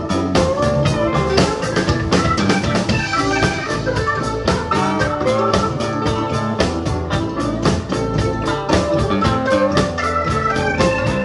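Live blues-rock band playing an instrumental passage: a drum kit keeps a steady beat under electric guitars, bass and a keyboard with an organ sound.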